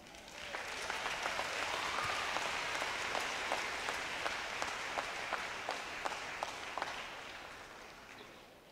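A crowd applauding with many hands clapping, building up within the first second, holding steady, then dying away over the last couple of seconds.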